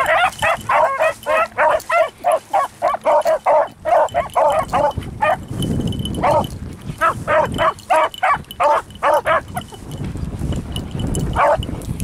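A pack of beagles baying in quick, choppy yelps on a rabbit's scent. The baying breaks off about five seconds in, picks up again for a few seconds, then one last yelp near the end, with wind rumbling on the microphone in the gaps.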